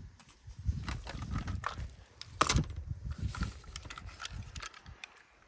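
Plastic toys being handled: irregular clicks and knocks with low thuds.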